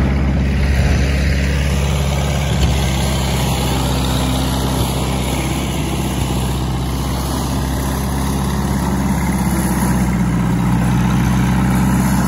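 Small vintage grey farm tractor's engine running steadily while it tows a flatbed trailer, a little louder near the end.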